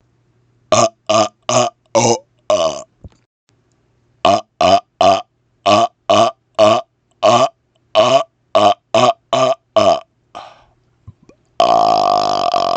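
A man burping on command in rapid-fire strings of short burps: five in quick succession, a pause, then about a dozen more. Near the end he lets out one long, drawn-out burp.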